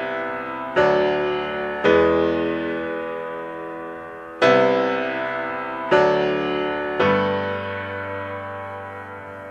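Music: slow keyboard chords, each struck sharply and left to ring and fade, five in turn.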